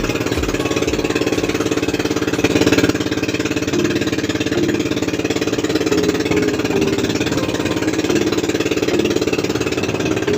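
Small engine running steadily at an even speed, with a fast, fine firing pulse.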